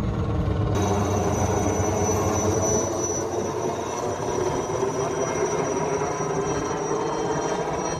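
Helicopter flying overhead: steady rotor and engine noise, with a high turbine whine that comes in about a second in.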